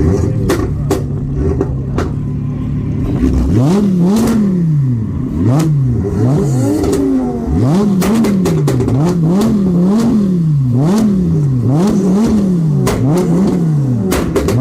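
A car engine idling, then revved again and again from about three seconds in, the pitch climbing and dropping roughly once a second, with sharp cracks in between.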